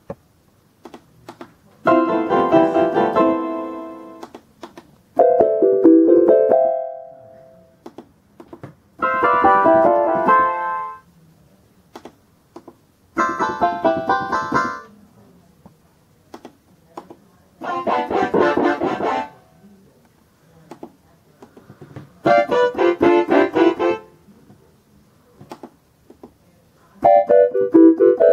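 A Concertmate-1000 electronic keyboard plays a short phrase in each of a run of preset instrument voices, about seven in all, each change of voice followed by a pause. The banjo voice comes about halfway through and the clarinet voice at the end. Faint clicks sound in the pauses between phrases.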